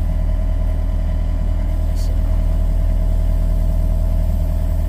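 John Deere compact excavator's diesel engine running steadily, heard from the operator's seat, with a constant hum from the machine over the engine sound.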